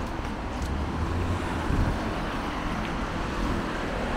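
Street traffic noise: a steady low rumble of passing vehicles in a city street, with a few faint ticks.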